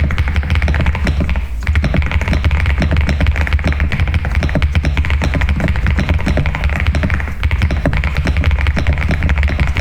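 Fast, continuous typing on an Epomaker TH99 mechanical keyboard: a dense stream of key clacks, with brief lulls about one and a half seconds in and again past seven seconds.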